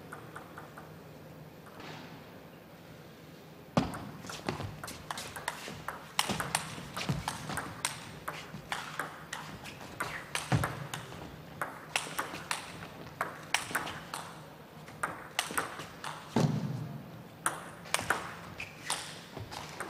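Table tennis rally: the ball clicking off the rackets and the table in a long, irregular run of sharp ticks, starting about four seconds in after a quiet start. A duller thud comes in about sixteen seconds in.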